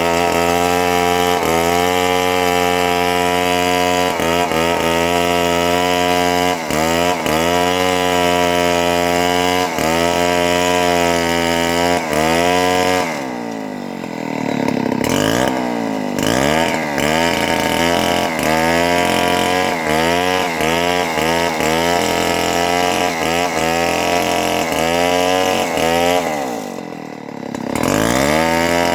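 Two-stroke chainsaw running at high revs while cutting leucaena (lamtoro) wood, its pitch dipping briefly again and again under load. About halfway through and again near the end it drops back toward idle, then revs up again.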